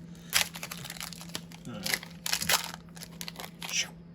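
Foil trading card pack wrapper crinkling and cards being handled and slid apart, in a series of short rustles over a faint steady low hum.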